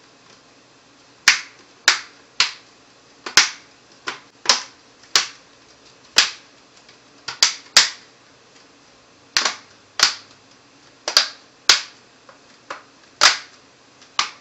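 Plastic screen bezel of an HP Pavilion G61 laptop being pressed onto the lid, its clips snapping into place: a long run of sharp single clicks at uneven intervals, about twenty in all.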